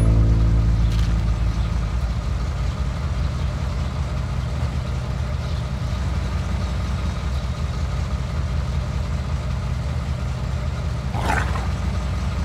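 Car engine idling with a steady, low, even sound.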